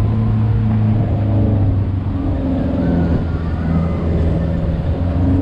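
Pickup truck engine running as the truck drives down a steep dirt road, heard from the open cargo bed, with a low drone that rises and falls slightly in pitch over road and wind noise.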